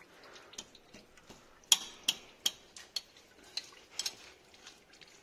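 Sharp metal-on-metal clicks from a wrench working the gearbox oil plug of a Maruti Eeco: about a dozen irregular clicks, the loudest a little under two seconds in.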